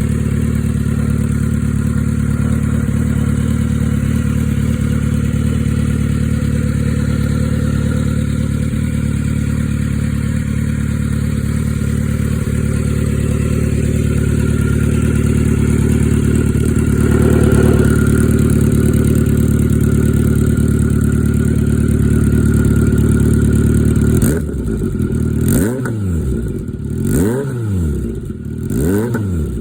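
Kawasaki Z900RS inline-four running at a steady idle through an aftermarket Spider slip-on silencer, then blipped several times in the last few seconds, the revs rising and falling with each blip.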